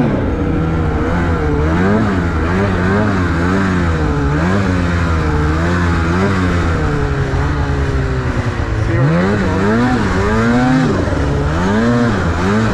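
Snowmobile engine running with the throttle worked on and off, its pitch rising and falling about once a second; it drops lower about two-thirds of the way through, then revs back up.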